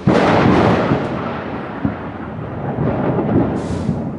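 Thunder from a close lightning strike: a sudden loud crack just after the start, then a rolling rumble with a few further peaks that slowly dies away.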